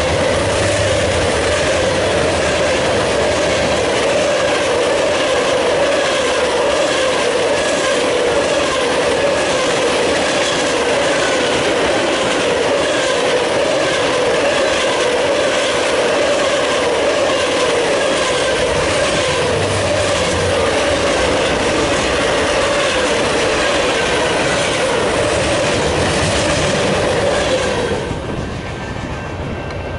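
Union Pacific mixed freight train passing at about 48 mph, its steel wheels rumbling and clicking over the rail joints as covered hoppers and tank cars roll by. The noise drops sharply near the end as the last car clears.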